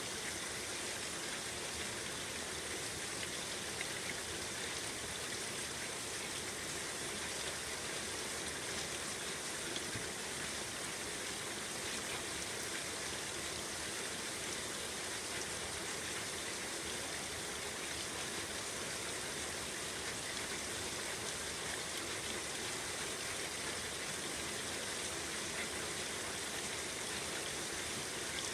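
Steady rainfall, a continuous even hiss of drops with faint scattered ticks.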